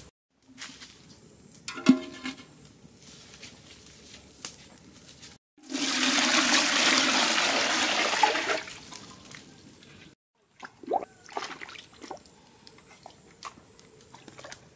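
Water poured from a metal bowl into a large metal pot: a loud, steady gush lasting about three seconds in the middle. Before it, a twig fire crackles faintly with a sharp knock about two seconds in. After it come scattered light clicks and knocks.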